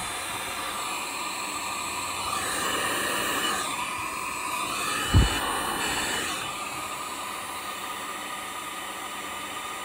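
Electric heat gun running on its low setting, a steady blowing hiss. A brief thump about five seconds in.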